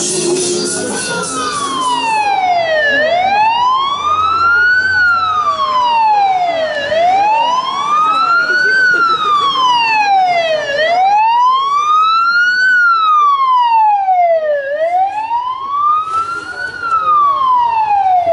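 Fire engine siren wailing. Its pitch sweeps slowly up and down, about one rise and fall every four seconds, starting about a second in.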